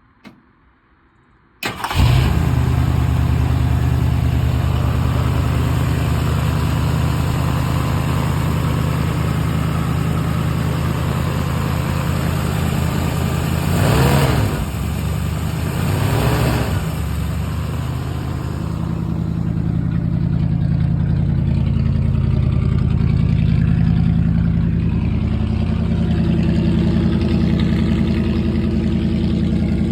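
Ford 390 FE V8 starting up about two seconds in, then running steadily. It revs briefly twice about halfway through before settling back to a steady idle.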